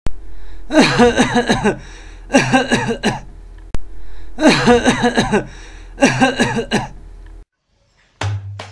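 A person coughing in four fits of several voiced coughs each, over a steady low hum. Tabla music starts near the end.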